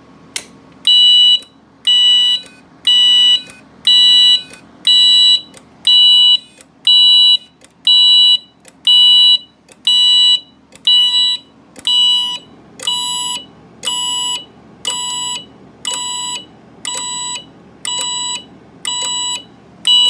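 Wheelock MT-24 multitone horn strobe sounding a loud, steady-pitched horn tone in march time, about one blast a second, starting about a second in. A single click comes just before the first blast as the pull station is pulled.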